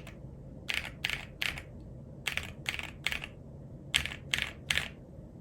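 Typing on an Akko ACR PRO68 mechanical keyboard with NuPhy Night Breeze switches and PBT double-shot keycaps. Keys are struck in three short runs of three or four, with brief pauses between the runs.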